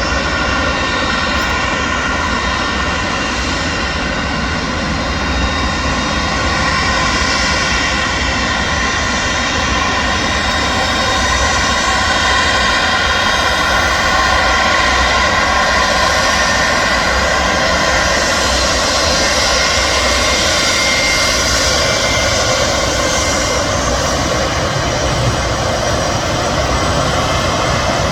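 QantasLink Boeing 717's twin Rolls-Royce BR715 turbofan engines running loud and steady, with whining fan tones over a broad jet rush, growing a little louder about six seconds in.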